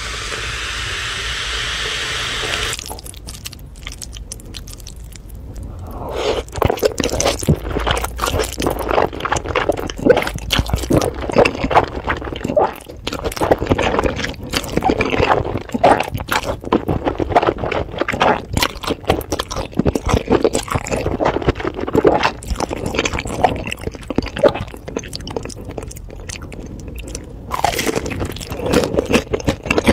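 Close-miked eating: wet chewing, slurping and smacking of sauced noodles and glazed dumplings, with dense crunchy clicks that begin about six seconds in. A steady hiss fills the first three seconds.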